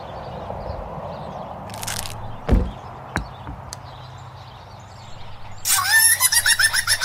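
Cartoon sound effects: a short hiss, then a dull thud and a lighter knock as nuts drop onto the car. Near the end a small animal starts a rapid chattering call with a rising squeak, over a low steady hum.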